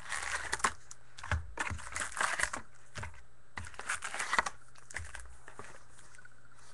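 Trading-card pack wrapper crinkling and tearing as a pack is opened and the cards are handled: irregular sharp crackles and ticks for about four seconds, then quieter handling.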